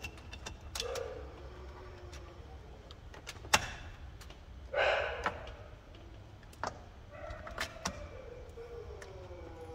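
Ford C-Max lithium battery cells and their busbars being pushed together by hand: sharp metal clicks and knocks, with a louder scraping slide about five seconds in.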